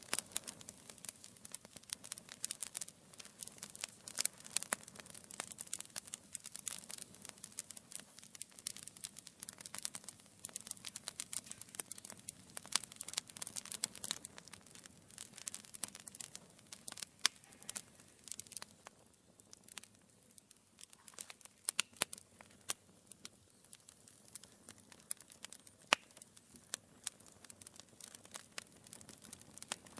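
Wood fire crackling in a fireplace: burning logs giving off dense, irregular snaps and pops, with a few louder single pops and a short sparser spell partway through.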